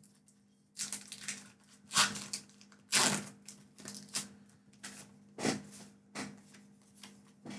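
Trading cards and foil booster-pack wrappers being handled: irregular crinkling and rustling, about one burst every second, the loudest near the start, middle and about two-thirds through.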